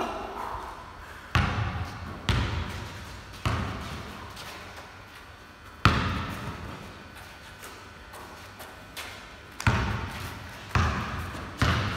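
Basketball bounced on a concrete floor, about eight uneven bounces with a long gap in the middle, each one echoing in a large hall.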